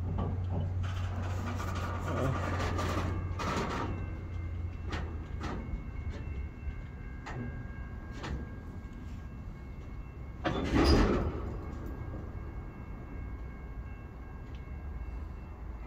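Freight train tank cars creeping almost to a stop on the rails. Scattered clicks and knocks come from the wheels and couplers over a low hum that fades after about four seconds, and a loud rushing burst comes about eleven seconds in.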